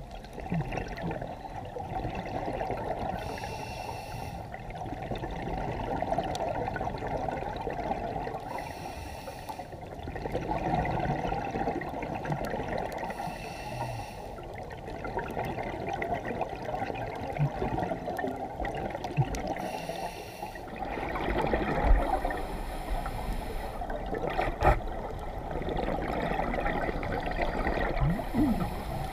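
Underwater sound through a camera housing: a steady muffled water noise, with a scuba regulator's exhaled bubbles bursting out about every five seconds. Two sharp clicks come near the end.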